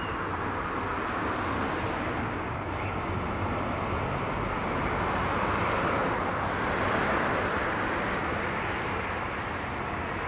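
Jet engines of a Boeing 767-300ER at climb power just after takeoff, a steady rushing engine noise that swells a little in the middle and eases slightly near the end as the jet climbs away.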